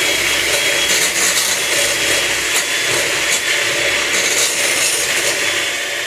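Electric mixer running at one steady speed, whipping mashed potatoes, with a high motor whine and a few light clicks.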